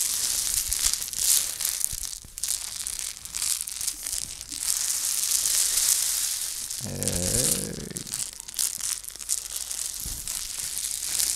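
Homemade rain stick made from recycled materials, tipped back and forth so the grains inside trickle down its length in a long hiss that swells and fades each time it is turned over.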